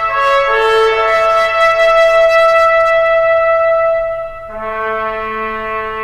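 Background music played on brass, trumpet-like: a short melody that settles on a long held note, then a new sustained chord with a lower tone enters about four and a half seconds in.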